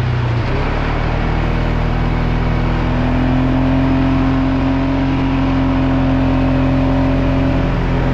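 Polaris Sportsman 570 ATV's single-cylinder engine running steadily while the quad is ridden at an even speed.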